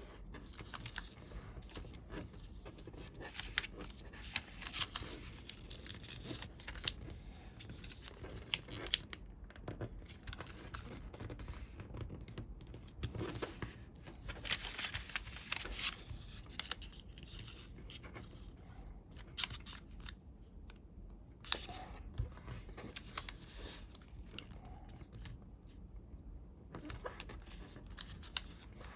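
Sheets of coloured origami paper being handled, folded and creased: irregular rustling and crinkling with short papery clicks.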